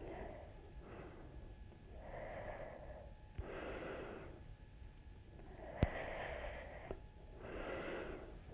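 A woman breathing audibly through slow squats, faint, even in-and-out breaths coming about every second or so. A single sharp click sounds a little past the middle.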